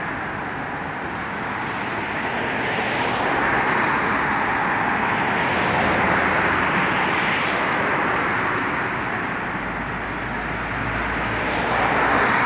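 Road traffic on a multi-lane city street: the tyre and engine noise of passing cars, swelling and fading every few seconds.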